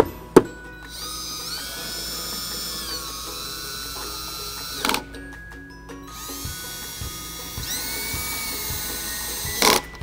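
Cordless drill/driver running twice for a few seconds each while driving the taillight's screws back in, its whine rising in pitch as it spins up. Each run ends in a brief loud burst. A sharp knock comes about half a second in.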